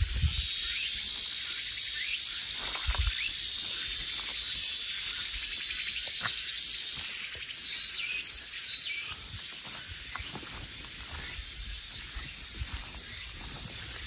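Insects buzzing steadily at a high pitch, with a few short chirps mixed in; the chorus gets quieter about ten and a half seconds in.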